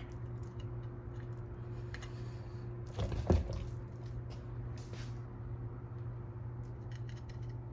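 Spoon scooping the bean and ground-turkey mix onto tostada shells: soft wet squishes, light taps and clicks, with one louder scrape about three seconds in, over a steady low hum.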